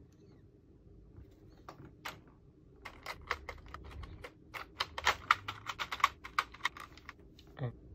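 Keys of a GMK67 mechanical keyboard fitted with O-rings clicking as they are pressed: a few scattered presses, then a quick run of clicks from about three seconds in.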